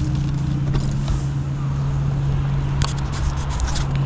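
A vehicle engine idling, a steady low hum, over street noise. A few light clicks come near the end.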